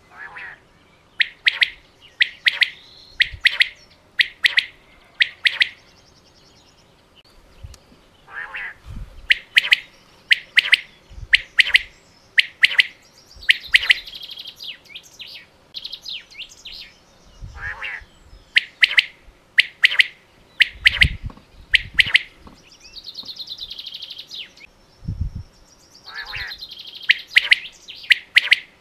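Common quail calling: several bouts, each a few soft, low notes followed by a run of sharp, ringing 'pwit' calls, with a short gap between bouts.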